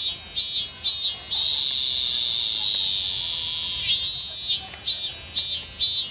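Robust cicada (minmin-zemi, Hyalessa maculaticollis) singing close up: a run of pulsed 'meen-meen' phrases, about three a second, then one long drawn-out buzzing note lasting about two and a half seconds, after which the pulsed phrases start again.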